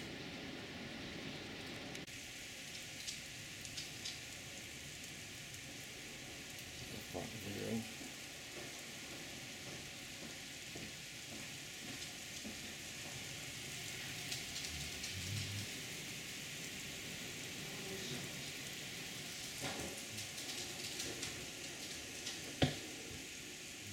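Heavy rain heard through a closed window: a steady, even hiss. A few soft knocks break in, and a single sharp click comes near the end.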